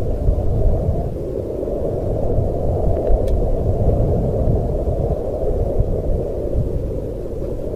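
Steady, deep rushing of wind as a night ambience, dull and low with nothing high in it.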